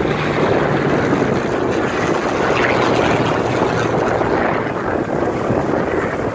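Supermarine Spitfire's V12 piston engine droning steadily as the fighter flies past, with wind buffeting the microphone.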